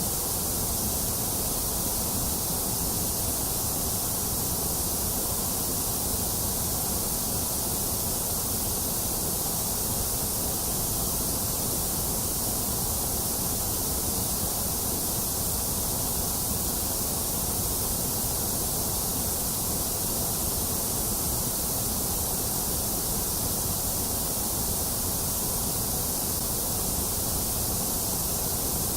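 Steady white noise played as a sleep sound: an even, unchanging hiss, strongest in the highs, with no rhythm or events.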